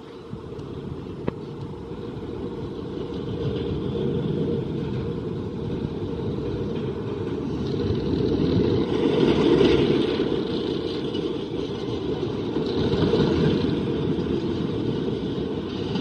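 Zamperla Windstorm steel roller coaster train running along its track with a steady rumble, growing louder as it passes, loudest a little past halfway with a second swell near the end. A single short click comes about a second in.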